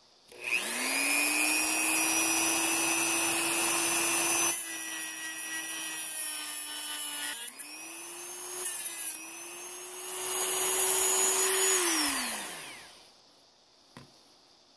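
Handheld rotary tool running an abrasive cut-off wheel through the tip of a revolver firing pin, cutting about 1/16 inch off the worn end to leave a flat face: a steady high motor whine with a gritty grinding hiss. The pitch dips briefly about halfway through, and the motor winds down near the end, followed by a small click.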